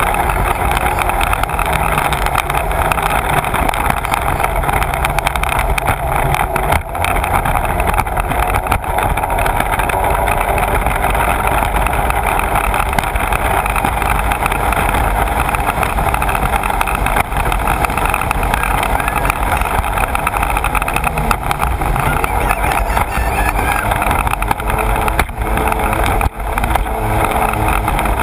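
Sea-Doo personal watercraft running at speed: a steady mix of engine noise and rushing water and spray, picked up close to the front of the hull, with a couple of brief dips.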